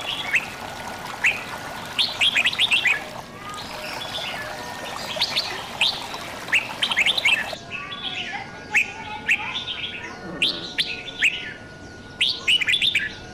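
Recorded birdsong: small birds chirping in quick clusters of rapid, falling notes every second or two, over a soft trickle of running water.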